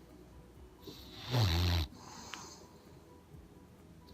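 A sleeping bulldog snoring: one loud snore about a second in, lasting about a second, with quieter breathing around it.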